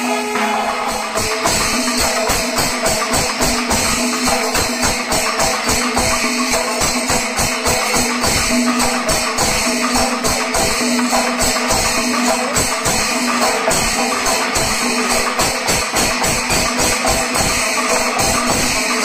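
Chenda melam: many chenda drums beaten fast with sticks, with elathalam hand cymbals clashing in time. The dense, driving rhythm keeps up without a break.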